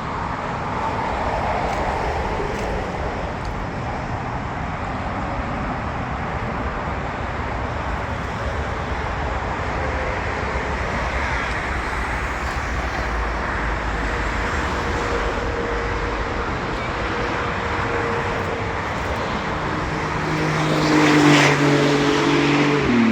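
Boeing 777 jet engines on landing approach: a steady roar with a faint whine that grows louder toward the end, then drops in pitch as the aircraft passes.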